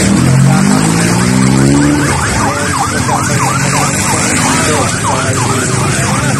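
Emergency vehicle siren in a fast yelp, its pitch sweeping down and up about twice a second. Over the first two seconds a vehicle engine rises in pitch under it.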